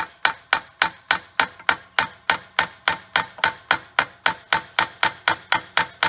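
Hammer striking metal in quick, even blows, about three a second, each with a short metallic ring: tapping at a frozen oil pump on a Farmall C engine to work it loose.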